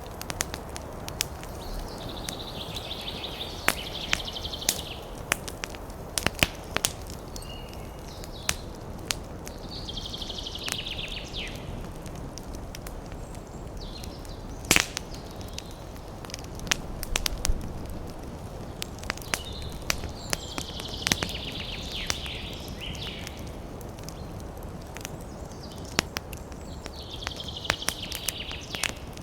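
Wood fire burning in a fireplace: steady low rumble of the flames with frequent sharp crackles and pops, a few of them loud. A higher hiss comes and goes four times.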